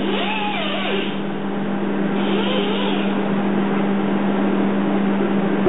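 A handheld rotary die grinder running steadily on a cast bronze sculpture, a constant hum over a grinding hiss.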